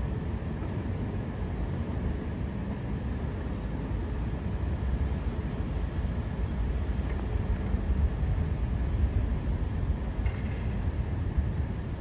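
Distant harbour fireworks: a continuous low rumble of bursts, with a few louder peaks in the second half.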